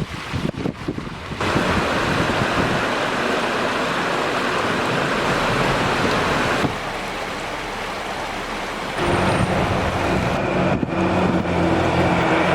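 A steady rushing noise, broken by abrupt changes in level. About nine seconds in, a vehicle engine's steady running hum joins it.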